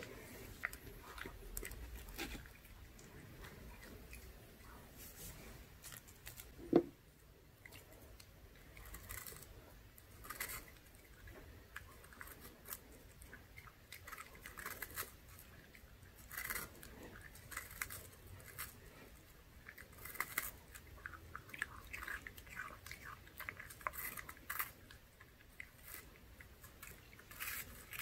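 Pomeranian chewing and biting a soft green onion pancake treat taken from a fork: bursts of small wet clicks and smacks. There is one sharp knock about seven seconds in.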